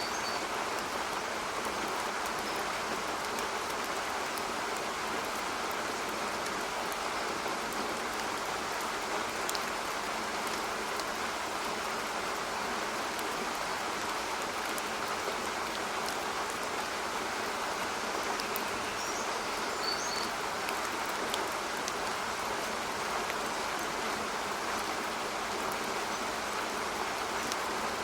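Steady rainfall, an even hiss of rain with no let-up, with a few faint high chirps about two-thirds of the way through.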